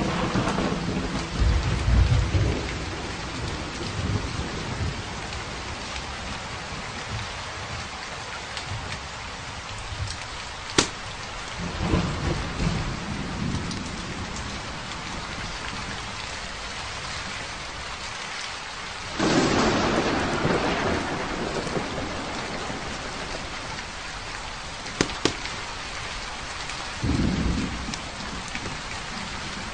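Steady heavy rain with several low rolls of thunder, the loudest rumble starting about two-thirds of the way through; a few sharp pops stand out in between.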